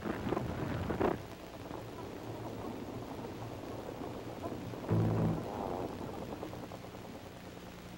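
Soundtrack music of low, sustained notes, with a louder low chord swelling in about five seconds in. It opens with about a second of rough, rumbling noise that fades out.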